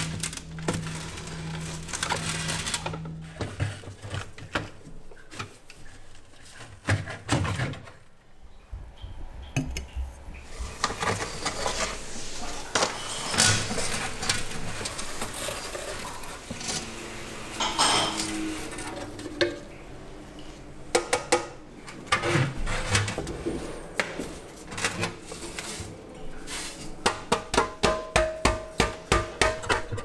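Hand work on old metal vacuum-cleaner parts: scattered metal clinks, knocks and scrapes of parts and tools, ending in a quick run of sharp taps, about three or four a second. A low hum stops about three seconds in.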